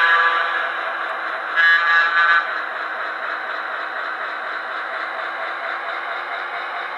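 Sound decoder of an HO-scale Broadway Limited Paragon 2 SW7 diesel switcher playing through the model's small onboard speaker: two short horn blasts in the first two and a half seconds, then the diesel engine sound running steadily.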